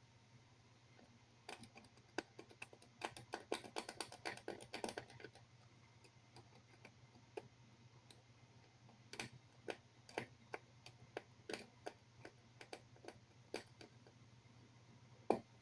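Faint, irregular clicks and ticks of a small hand tool working at the damaged pads of a laptop motherboard. A dense run comes a couple of seconds in, then scattered single ticks, and one sharper click near the end.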